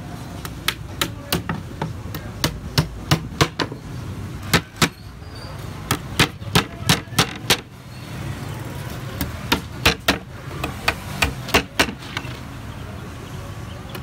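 Hammer driving nails through thin wooden planks into a timber frame: runs of sharp strikes, about three a second, broken by short pauses.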